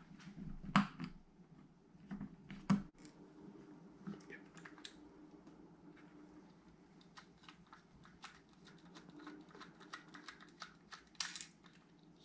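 Small metallic clicks and ticks of a screwdriver and loose metal parts while a Daiwa Strikeforce 2500B spinning reel is being taken apart, with two louder knocks about a second and about three seconds in and a quick run of clicks near the end. A faint steady hum sits underneath.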